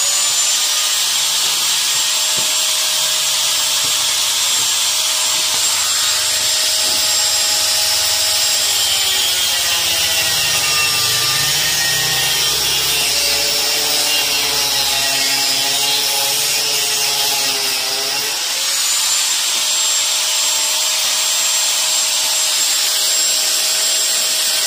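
Electric angle grinder with a cutting disc running as a steady high whine while cutting steel bar. Its pitch sags from about nine seconds in as the disc is loaded, then climbs back near eighteen seconds as it frees up.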